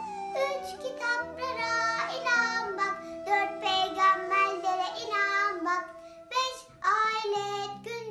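A young girl singing a Turkish ilahi (religious hymn) over a backing music track, with a short pause in her voice about six seconds in.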